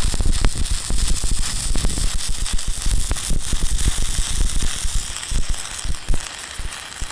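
Loud, dense crackling hiss with many irregular sharp pops, easing off a little toward the end.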